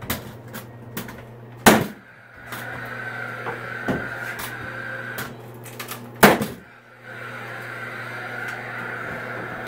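Cordless framing nail gun driving nails into a wooden ceiling brace: two sharp, loud shots, about a second and a half in and about six seconds in, each followed by a steady whir for a few seconds, with a few lighter knocks of wood and tool handling.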